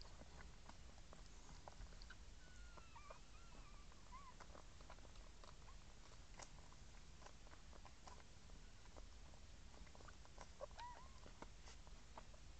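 Faint, thin squeaks from newborn puppies: a few short wavering calls, over soft scattered clicks from the litter and mother moving and nursing.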